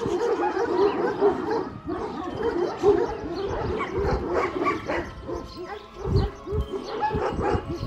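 Several Kangal dogs barking and yipping at once, short overlapping calls without a break, with a couple of low thuds about six seconds in.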